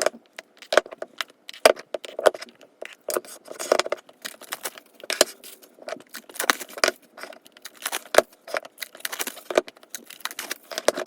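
Plastic shrink wrap being torn and peeled off small album boxes by hand, crinkling and crackling in quick, irregular bursts.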